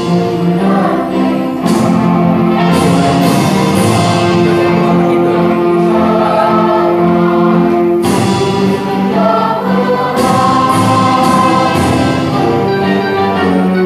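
Mixed school choir of boys and girls singing in parts, holding long sustained chords; the sound breaks off briefly about eight seconds in, then the singing resumes.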